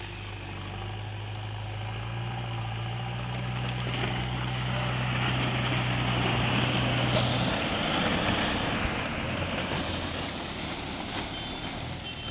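A motor vehicle's engine running with a steady low hum, while a louder rush of noise swells in the middle and fades. The hum stops about seven and a half seconds in.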